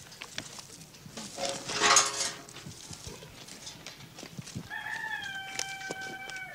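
A rooster crowing: a short crow about two seconds in, then a longer one held at a steady pitch over the last two seconds.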